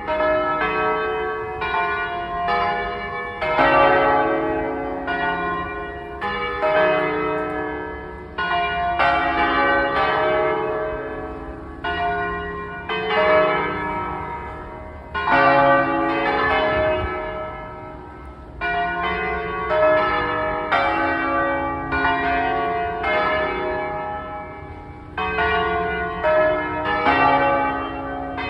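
Several church bells pealing continuously. Strikes of different pitches follow one another somewhat more than once a second, and each rings on into the next.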